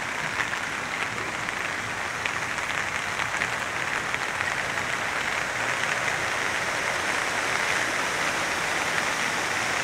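Steady rain falling, with many sharp close drop ticks in the first half. A smoother rush of running water builds toward the end.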